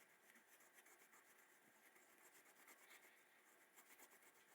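Near silence, with very faint soft rubbing and scratching: a cloth working leather conditioner into an old, brittle leather knife sheath.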